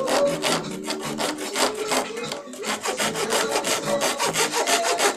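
Rapid back-and-forth rasping strokes on wood, about five or six a second, as a small pallet-wood part is worked.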